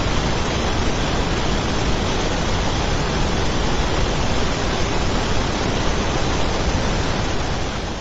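A fire extinguisher spraying: a steady, even hiss that tails off near the end.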